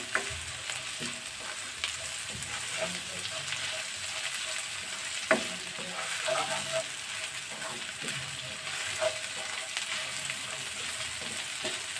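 Sliced onions sizzling in hot oil in a non-stick wok while a spatula stirs them, scraping and tapping the pan now and then, with one sharper tap about five seconds in. The onions are being softened until translucent, not browned.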